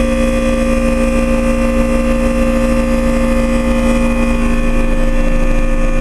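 Trane XL20i heat pump outdoor unit running in heat mode, its reciprocating compressors humming steadily with a few fixed pitched tones over a low rumble, heard up close through the unit's louvered grille.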